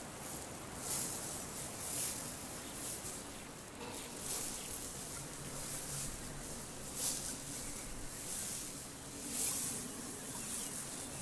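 Small citrine crystals rattling and clicking inside a black drawstring fabric pouch as it is shaken and squeezed by hand close to the microphone. The rattle comes in irregular, hissy swells about every one to two seconds.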